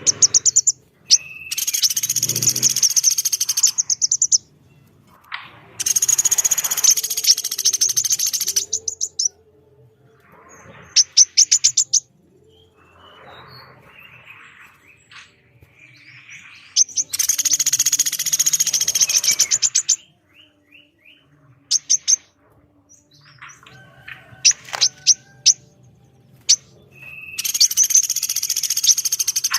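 Calls of a pelatuk beras (a small woodpecker) and a female korlap: four long, harsh buzzing trills of two to three seconds each, with short sharp chirps and rattles between them.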